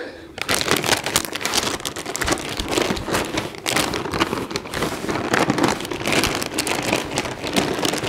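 Plastic snack packets crinkling and rustling in a dense, irregular crackle as two faces root around inside them.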